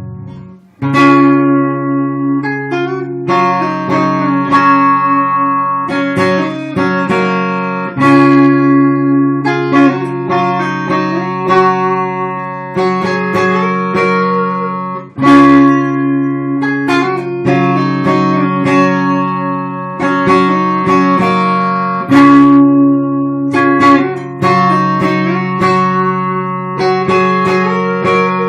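Guitar music: plucked guitar notes and chords ringing out, each attack fading before the next.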